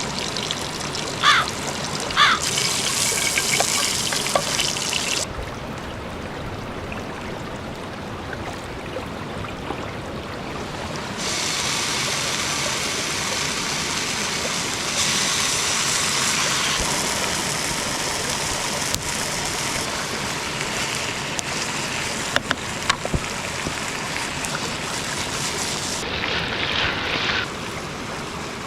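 Steady rush of running stream water, with a few light clicks and knocks; its brightness changes abruptly a few times.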